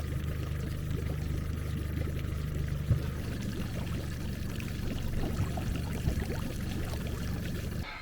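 Water pouring and splashing over a steady low engine hum.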